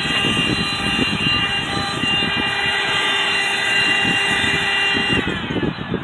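MATCC 12 V, 110 W corded handheld car vacuum running with a steady high whine while its nozzle works over fabric car-seat upholstery. A little after five seconds it is switched off and the whine falls away as the motor spins down.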